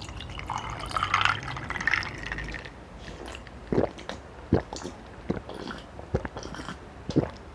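Water poured from a plastic pitcher into an ice-filled glass mug for about two seconds. Then come several short gulps, roughly one a second, as it is drunk.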